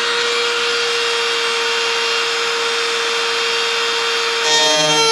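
Flexible-shaft Dremel rotary tool spinning a cutoff wheel at full speed with a steady high whine. About four and a half seconds in, the wheel bites into the rudder's metal nose skin and the sound turns louder and shrill, with ringing tones that start to drop in pitch as the tool comes under load.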